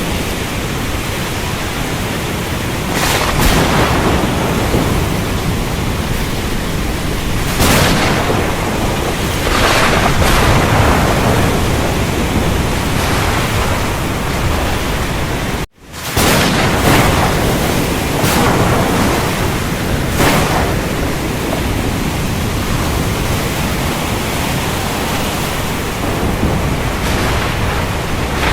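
Thunderstorm: a steady wash of rain with several swelling rumbles of thunder. The sound cuts out for an instant about halfway through.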